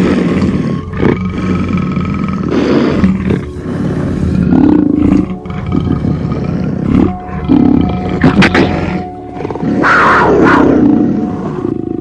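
Big cat growling and roaring in a series of loud, rough bursts about a second apart, the strongest near the end, over background music with long held tones.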